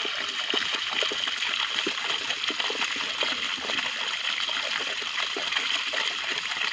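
Muddy water pouring steadily down a cut in a mud bank and splashing into a woven basket fish trap, with many small crackling splashes.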